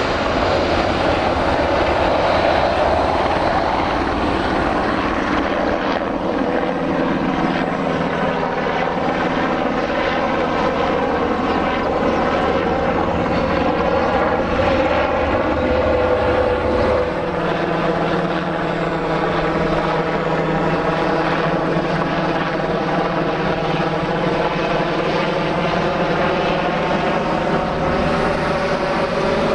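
Boeing 737-800 airliner's CFM56 turbofan engines heard during its landing: a loud, steady jet roar with whining tones that slowly fall in pitch as the plane moves away down the runway.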